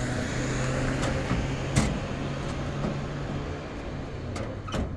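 A vehicle engine running steadily, its low hum fading in the last second or so, with a sharp knock about two seconds in and two lighter knocks near the end from things handled in the back of a pickup truck.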